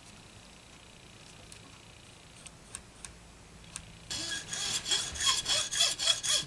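A few faint ticks, then from about four seconds in a fine hand saw cutting a guitar nut blank held in a vise: quick back-and-forth rasping strokes, about three a second.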